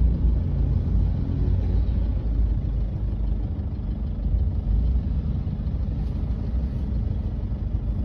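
Steady low rumble of a car's engine and road noise, heard from inside the car's cabin.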